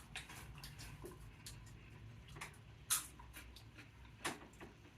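A few sharp, scattered crunches of puffed corn snacks being bitten and chewed, the loudest near the middle and again about four seconds in, over a faint low room hum.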